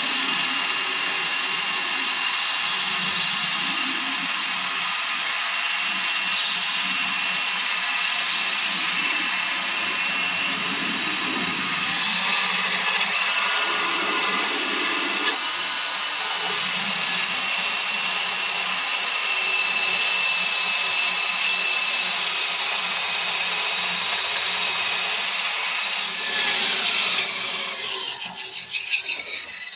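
Cordless Worx drill spinning a sharpening stone against the steel edge of a lawnmower blade: a steady motor whine over the grinding of stone on metal. Near the end the drill slows and stops as its battery runs flat.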